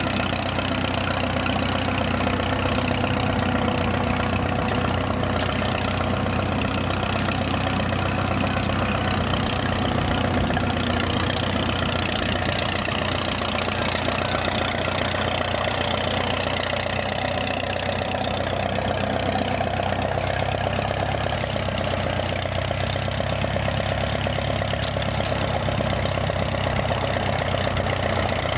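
Vintage tractor engine running steadily, with no change in speed.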